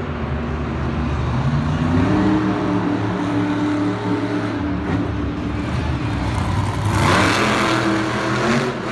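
A large engine revving and running, its pitch rising and falling, with a loud noisy rush about seven seconds in.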